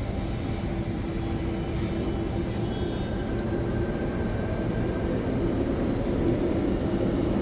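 Sydney Trains Tangara T set pulling away, its Mitsubishi GTO chopper traction control giving a steady whine over the rumble of the train, growing gradually louder.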